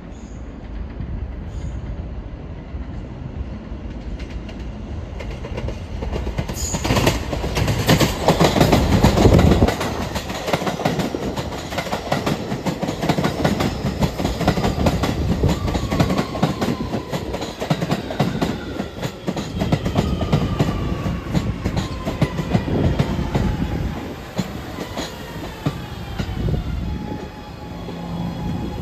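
New York City Subway train arriving: wheels clattering over the rails as the cars run past, loudest about eight to ten seconds in. Then its electric motor whine falls steadily in pitch as the train brakes, settling to a steady hum as it stops near the end.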